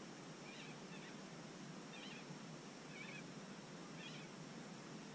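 A bird's short high chirping calls, repeating about once a second over a faint steady background hiss.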